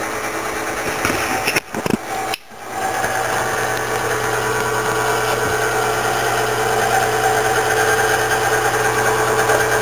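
Model 6000 pouch laminator running with a steady motor hum as its rollers carry a business-card-size pouch through the machine. The sound briefly drops out twice about two seconds in.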